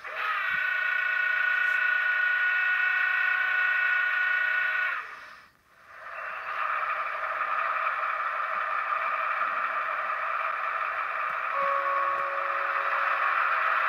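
A Märklin HO model of the DB VT 10.5 diesel railcar plays its digital sound effects through its small onboard speaker. First comes a steady multi-tone horn held for about five seconds. After a brief break there is a steady rushing running sound, the model's diesel engine sound, with a few extra held tones joining near the end.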